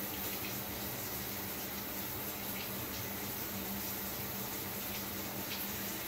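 Shower running: a steady spray of water hissing down, with a few faint splashes standing out now and then.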